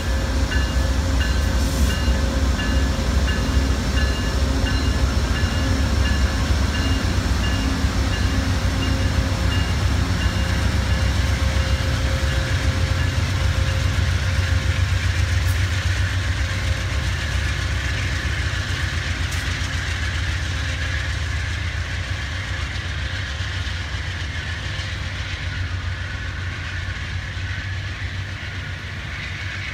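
Amtrak passenger train passing close behind diesel locomotives: a low engine rumble and wheel and rail noise, then the bi-level cars rolling by. The sound slowly fades through the second half. A pulsing high ringing tone runs over the first half.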